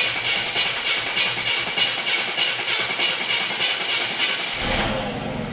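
1985 Buick Regal's 3.8 V6 cranking on the starter with an even rhythmic churn, then catching and firing up about four and a half seconds in with a brief rise in revs. It cranks a while because the carburettor is dry of fuel, and it fires now that a failed ignition module has been replaced.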